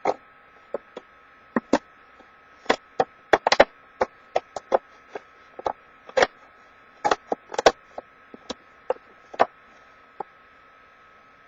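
Scissors snipping through a plastic and cardboard package: a run of sharp, irregular snips that stops about ten seconds in, over a faint steady hum.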